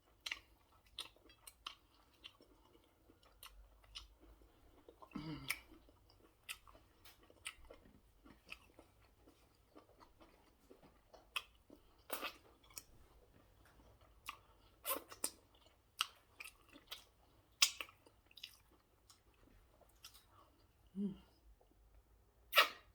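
Close-miked chewing, with irregular wet smacks and clicks of the mouth and a short low hum about five seconds in and again near the end.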